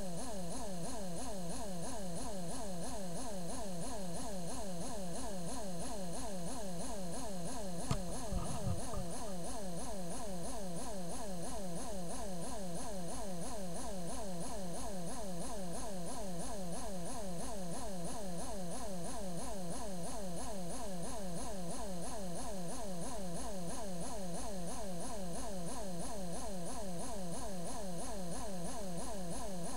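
Small brushed DC can motor running steadily under pulsed drive, a buzzing whine that pulses in a quick, even rhythm. A single brief knock comes about eight seconds in.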